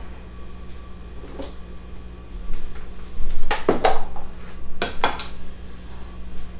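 A few sharp clicks and knocks of kitchen items, such as seasoning containers, being handled and set down on a counter, over a faint steady low hum.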